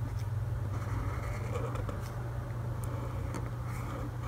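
Faint scratching of a fine-tipped marker drawing strokes on paper, over a steady low electrical hum.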